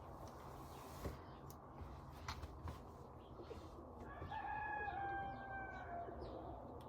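A rooster crowing once, about four seconds in: one long call that lasts about two seconds and sags slightly in pitch at the end. A few faint clicks come before it.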